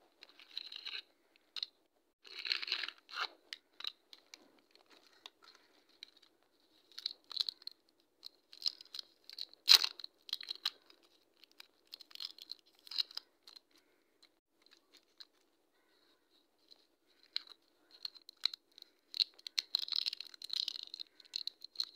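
Plastic sweet wrapper crinkling and crackling as a twist-wrapped orange candy is handled and unwrapped by hand, in irregular spells with quiet gaps. One sharp snap about ten seconds in, and a longer run of crinkling near the end.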